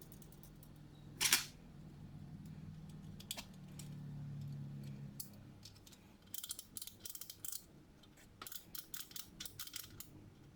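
Small 3D-printed plastic parts being handled and fitted together: a short scrape about a second in, then a few scattered clicks, and two runs of rapid light clicking in the second half.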